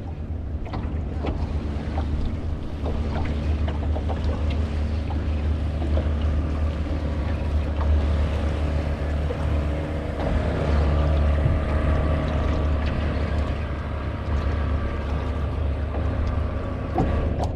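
A small fishing boat's motor running steadily under way, with wind noise on the microphone.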